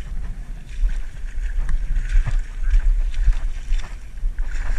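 Heavy rumble of wind on the camera microphone, with irregular splashing from a hooked steelhead thrashing at the water's surface.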